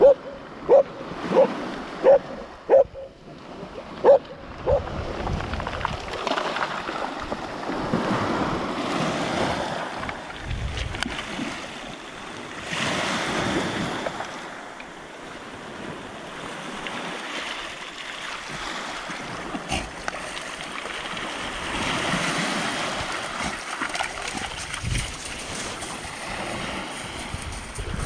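Surf washing in over a pebble beach, a steady rush of small waves. In the first few seconds a dog barks about seven times, in short even barks about two-thirds of a second apart.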